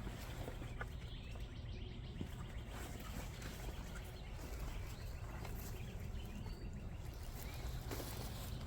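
Outdoor background: a steady low rumble with a few faint bird chirps and small scattered clicks.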